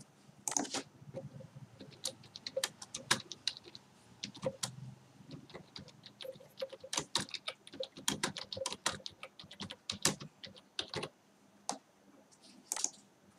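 Computer keyboard typing: a run of irregular keystrokes as a short sentence is typed, with a brief pause near the end.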